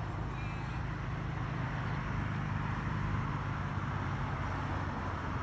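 Steady motor-vehicle hum with road noise, swelling slightly about halfway through and easing off toward the end.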